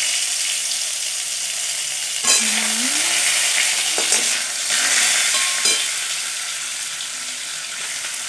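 Boiled potatoes sizzling in hot oil in a metal kadai, a steady loud frying hiss. A flat metal spatula knocks and scrapes against the pan a few times as the potatoes are turned.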